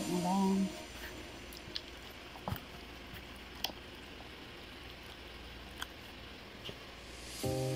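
Faint wet squelches and a few scattered clicks from gloved hands working raw chicken pieces in marinade in a plastic bowl. Background music cuts out about a second in and comes back near the end.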